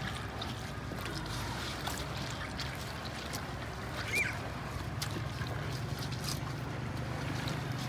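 Steady low hum of a boat motor running, with the wet rustle and small clicks of a mesh net being pressed and handled and a little water trickling. A brief high chirp sounds about four seconds in.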